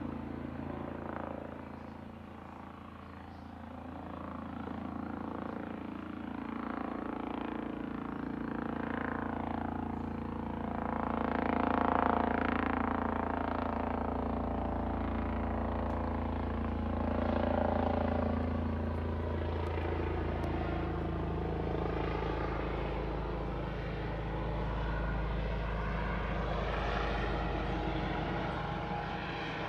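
Police Scotland's Eurocopter EC135 helicopter circling overhead: a steady turbine-and-rotor drone that swells louder and fades, loudest about twelve seconds in and again near eighteen seconds.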